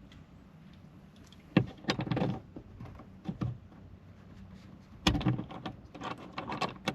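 Handling knocks and rattles inside a pickup's cab: a sharp knock about a second and a half in with a short clatter after it, a few lighter knocks, then a heavier thump and a run of clicks near the end.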